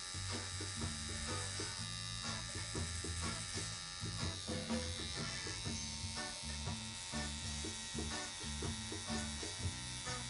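Electric tattoo machine buzzing steadily while lining a tattoo into skin with a 9-round-liner needle.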